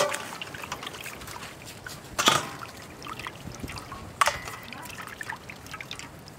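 Water sloshing and trickling as hands wash cut catfish pieces in a steel bowl. Two sharp knocks sound, about two and four seconds in, as pieces are set down in a second steel bowl; the second knock rings briefly.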